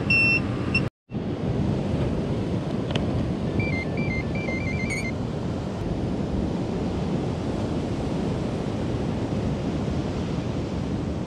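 Steady wind noise on the microphone over surf on a beach, with a few short electronic beeps at the start and a warbling electronic beep pattern about four seconds in.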